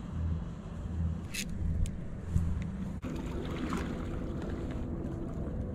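Wind buffeting the microphone in uneven low gusts, with a few sharp ticks. About halfway through it cuts off suddenly and gives way to a steadier wind noise with a faint low hum.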